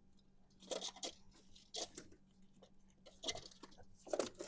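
Handling noise from a rubber-jacketed ignition wire being worked behind rubber heater hoses: a few short crackles and taps spread over the four seconds.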